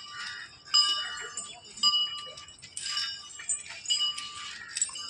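A metal bell ringing in repeated strokes, about one a second. Each strike is left to ring on at the same clear pitches.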